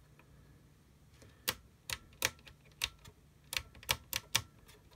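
Uniden CB radio's channel selector knob being turned, clicking about a dozen times at uneven spacing, starting about a second and a half in, over a faint low hum.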